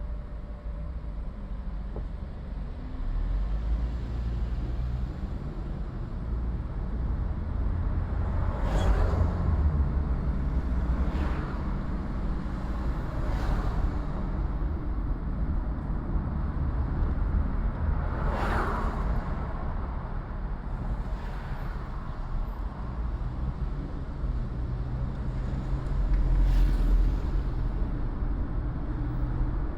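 City street traffic heard from a moving car: a steady low engine and road rumble, with the brief whooshes of other vehicles going by about six times.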